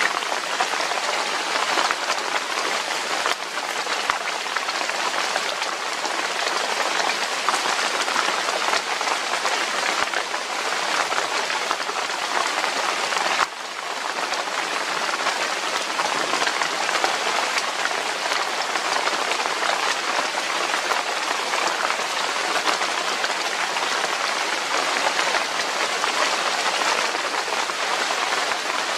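Steady, fairly loud rain falling, with a brief dip in level about halfway through.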